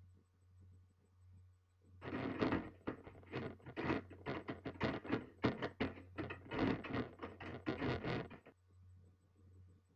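A run of rapid, irregular knocking and rustling noises, starting about two seconds in and lasting about six seconds, over a steady low hum.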